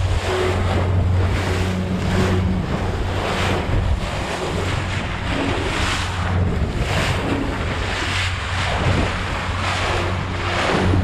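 Boat running at speed over open ocean: a steady low engine drone under rushing water and heavy wind buffeting on the microphone, the noise surging about once a second as the hull meets the chop.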